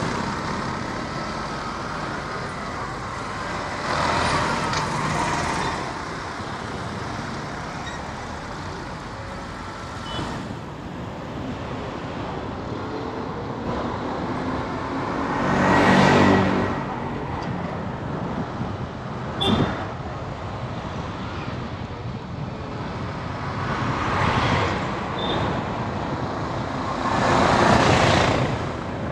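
Steady road traffic noise, with several vehicles, trucks among them, swelling past; the loudest pass is about halfway through, and two more come near the end. A brief sharp sound cuts in about two-thirds through.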